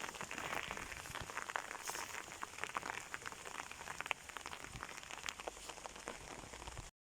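Steady rain falling, with many individual drops ticking sharply over the hiss of the shower.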